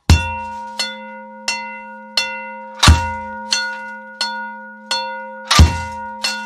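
Kitchen-band percussion: a metal object is struck at an even pace, about one stroke every 0.7 seconds. Each stroke leaves a steady bell-like metallic ring, and every fourth stroke is louder, with a deep thud underneath.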